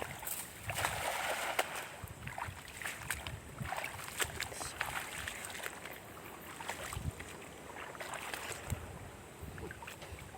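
Water sloshing and splashing, heaviest in the first couple of seconds, with scattered small knocks and rustles throughout.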